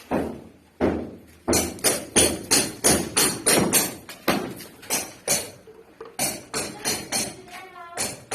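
Hammer blows in quick succession, about three a second, each with a bright ringing edge like steel striking a nail or metal, pausing briefly a little past halfway before going on.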